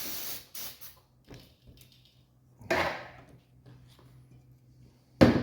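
Aerosol spray can hissing in short bursts at first, as the carburetor is sprayed clean. Then a knock about three seconds in, and a sharp, louder clack near the end.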